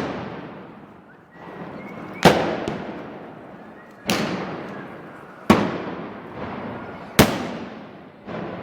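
A series of loud gunpowder bangs, roughly one every one and a half seconds, each ringing out in a long echoing decay, with a fainter pop or two between them.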